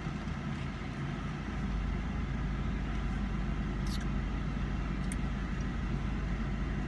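Steady low hum of a parked car's idling engine heard from inside the cabin, with two faint clicks about four and five seconds in.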